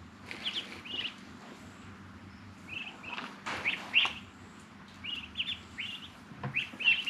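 Birds chirping: quick high notes in runs of two or three, repeated every second or two, with a short noise about three and a half seconds in.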